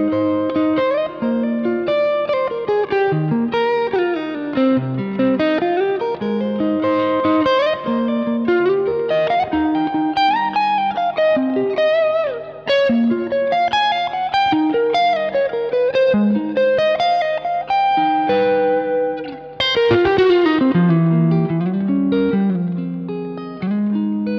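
Fender Stratocaster electric guitar playing a chord-melody passage in E-flat / C minor: chords such as Ab, Cm, Abm7 and Dbmaj7 picked as broken chords with a melody line over them. Some notes glide in pitch between notes. The playing eases off briefly twice.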